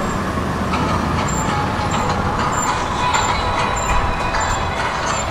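Steady running noise of a vehicle in motion, a low rumble with a faint high tick repeating about twice a second.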